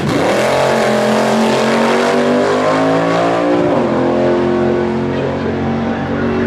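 Front-engine dragster launching hard at full throttle, its engine note climbing steadily for about three and a half seconds, dropping sharply, then climbing again as the car pulls away down the strip.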